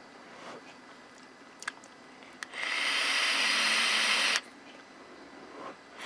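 A puff on a Geek Vape Aegis Boost pod mod, its coil firing at 25 watts: a click, then a steady airy hiss of air drawn through the pod for about two seconds, which cuts off suddenly.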